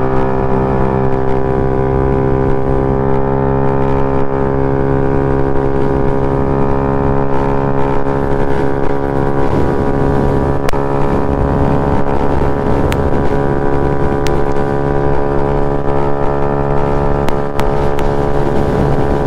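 Modified Honda Ruckus scooter engine running at a steady cruising speed, a steady drone that holds one pitch after climbing just before.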